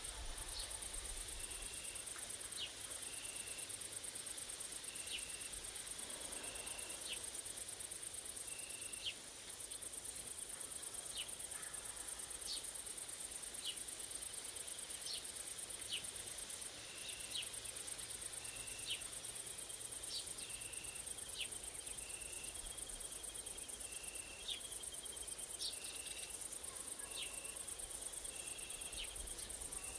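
Grasshoppers and crickets stridulating in a steady, very high-pitched buzz that breaks off briefly a few times, with short high chirps and regularly repeated short notes over it.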